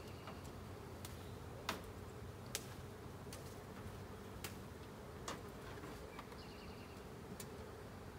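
Honey bee swarm buzzing in a steady hum, with a few short sharp clicks scattered through it.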